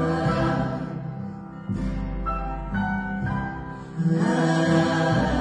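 Live acoustic ensemble of piano, stringed instruments and cello playing, with no words heard. New chords come in about a third of the way through and again after about four seconds, where the music swells louder.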